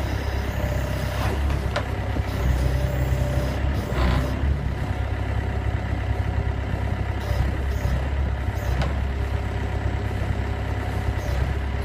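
Engine of a small orange wheeled farm machine running steadily with a low drone, with a few brief clicks and knocks.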